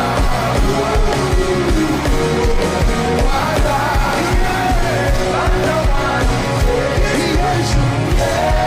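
A live gospel worship band plays with a steady drum beat while voices sing.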